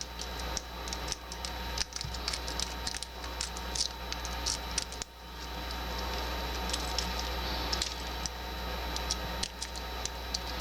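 A lock-pick rake scraping and clicking over the pins inside a 40 mm laminated padlock's keyway: a run of irregular light metallic ticks and scratches. The lock does not open.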